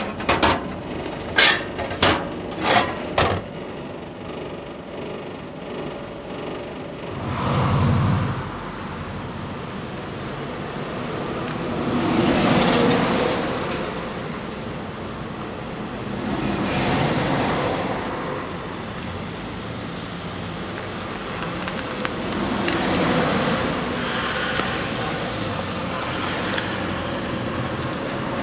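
Several sharp clacks in the first few seconds as the push-flap door of a hamburger vending machine's pickup slot is worked and the boxed burger is taken out. Then road traffic passing in slow swells, about four times, with light rustling as the cardboard burger box is opened.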